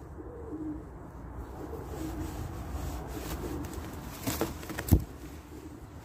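Pigeon cooing in low, repeated phrases, from an Uzbek two-crested pigeon loft. About four and five seconds in come two sharp knocks, the second the loudest.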